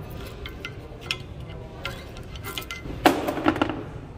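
Flathead screwdriver prying rear brake pads out of a caliper bracket: light metal clicks and clinks, then a louder metallic clatter about three seconds in as a pad comes free.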